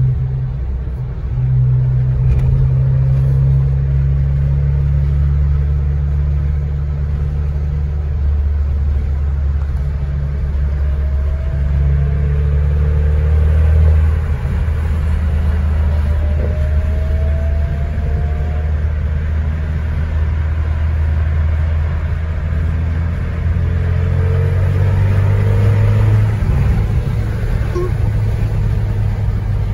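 A car's engine and road noise heard from inside the cabin while driving, a steady low drone that drops about halfway through and rises again near the end.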